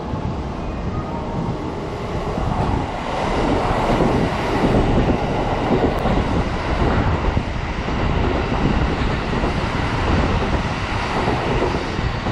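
Kintetsu 30000 series Vista EX limited express train passing through the station without stopping, growing louder about three seconds in as it reaches the microphone and staying loud as the cars go by.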